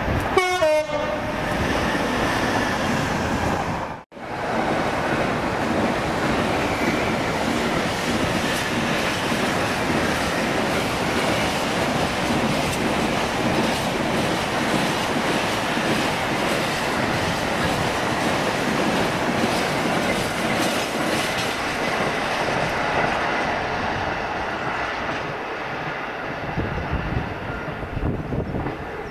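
Freight train passing: the locomotive's note falls in pitch in the first second as it goes by, then, after a momentary dropout about four seconds in, the wagons rumble and clatter over the rails steadily for some twenty seconds, easing off near the end.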